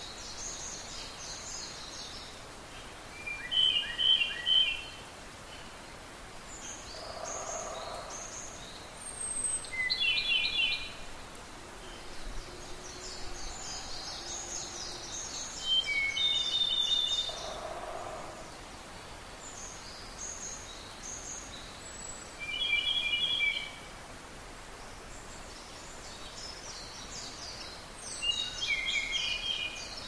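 Several wild songbirds singing at dawn. A loud song phrase comes back about every six seconds, five times in all, with higher, fainter songs in between.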